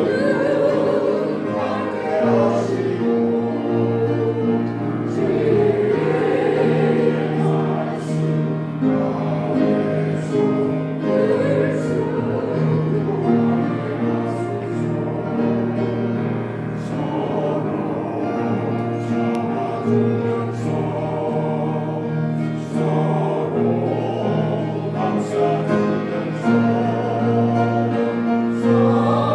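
Choir singing a slow Korean gospel song in long held chords.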